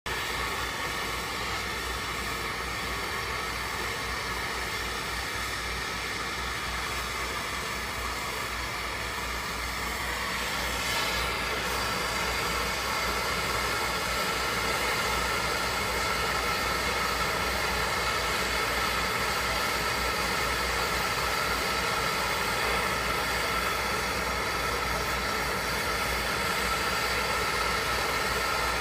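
Handheld gas torch burning with a steady rushing noise, its flame heating a copper pipe joint for brazing; the noise grows a little louder about eleven seconds in.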